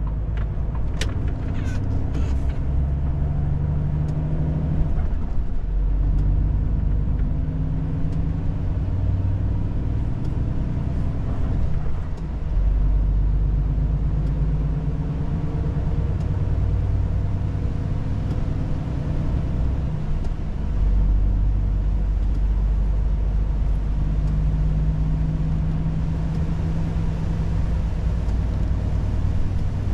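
Volvo FH 500 truck's six-cylinder diesel running on the road, heard from inside the cab. The engine note dips and picks up again a few times, around five, twelve and twenty seconds in, as the load or gear changes. A few short clicks come in the first couple of seconds.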